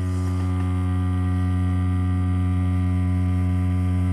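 Tattoo machine running with a steady low buzz as its needle pulls line work.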